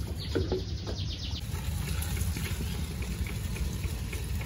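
Tap water running from a hose into a plastic bucket of leafy greens, over a steady low rumble. A short, fast chirping trill sounds in the first second or so.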